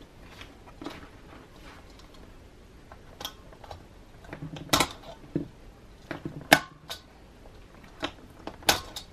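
A small flathead screwdriver prying at a Filofax planner's metal ring mechanism: scattered sharp metal clicks and scrapes as the tip catches and slips under the mechanism's brackets, the loudest click about six and a half seconds in.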